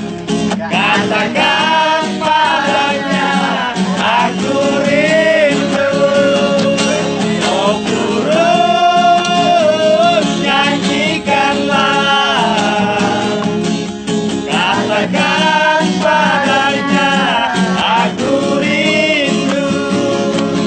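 Men singing a song in high voices to an acoustic guitar, with long held notes.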